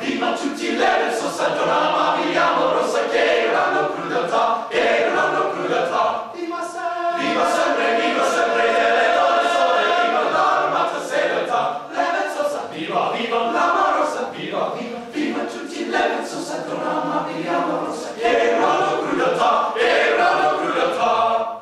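Men's vocal ensemble singing a cappella in several parts, with a short break about seven seconds in; the singing stops abruptly at the end.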